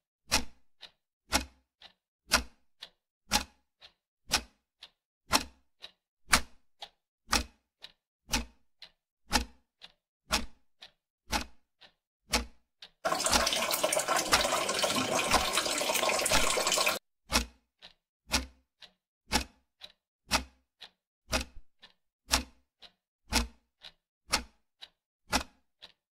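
Steady clock-like ticking, about one loud tick a second with fainter ticks between. About thirteen seconds in, a dense rushing noise breaks in for some four seconds and stops abruptly, and the ticking goes on.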